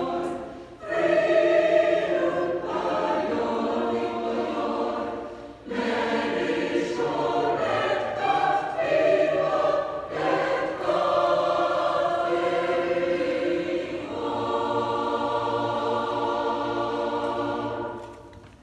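Mixed church choir of men and women singing together, with brief breaks between phrases about one and six seconds in; the last chord dies away near the end.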